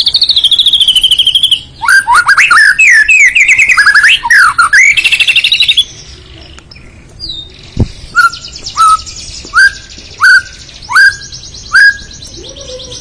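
White-rumped shama (murai batu) singing a loud, varied song. It opens with a rapid high trill, runs into a fast stream of quick gliding notes, and after a short pause gives six short notes in a row, each about two-thirds of a second apart.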